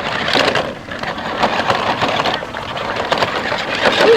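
Large toy RC pickup truck driving over rough ground, a steady crackling rattle of its wheels and body with many small clicks.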